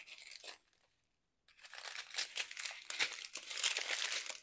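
Plastic packaging crinkling as a wrapped bundle of small plastic bags of diamond-painting drills is unwrapped and unrolled: a short crinkle, about a second of silence, then steady crinkling.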